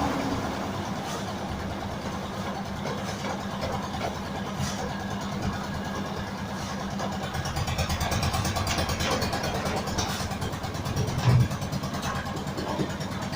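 An engine running steadily, with one short louder moment about eleven seconds in.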